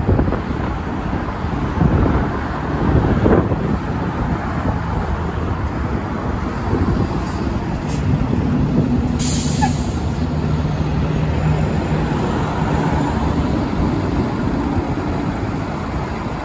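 Garbage truck's diesel engine pulling up to the curb among traffic, then idling with a steady low drone; a short sharp hiss of the air brakes about nine seconds in.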